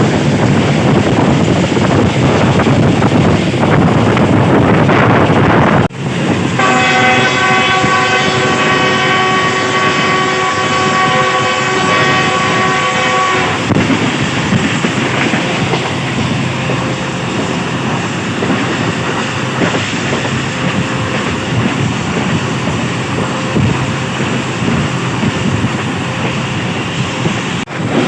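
Pakistan Railways passenger train running at speed, a steady rumble and rush of noise. About six seconds in, the locomotive's horn sounds one long steady blast lasting about seven seconds.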